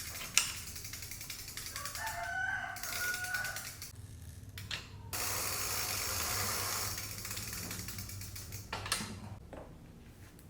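A rooster crowing once, a wavering call about two seconds in, with sharp clicks near the start and near the end and a steady hiss for about two seconds in the middle.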